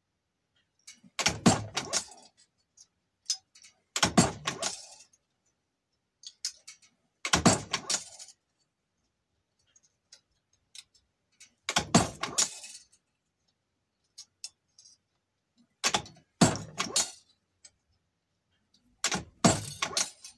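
One-stroke gas check die in a reloading press, punching .30-calibre gas checks from a flashing strip one stroke at a time. There are six clusters of metallic clunks and clicks, about every three to four seconds, each a press stroke that cuts and forms a gas check.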